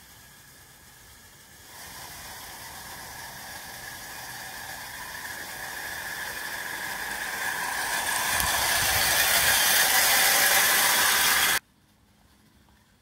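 Miniature garden-railway train of tipper wagons running along the track: a steady rushing, hissing running noise that grows louder as it approaches, then cuts off abruptly near the end.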